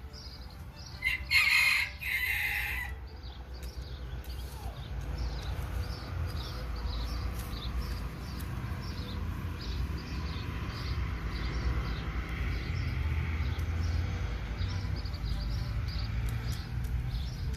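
A rooster crows once about a second in, a loud two-part call lasting about two seconds. After it comes a steady low rumble, with a faint short high chirp repeating about twice a second.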